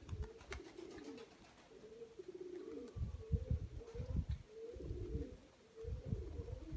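Several domestic pigeons cooing over and over, each coo a short rising-and-falling call. Low muffled rumbles come and go about halfway through and again near the end.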